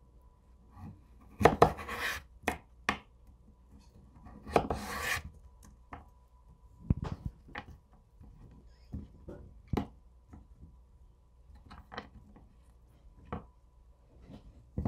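A chef's knife and butternut squash pieces on a wooden cutting board. There are two longer scraping rasps, about one and a half and four and a half seconds in, as squash is cut and slid across the wood. Then come scattered light knocks and taps as the slices are handled and set down.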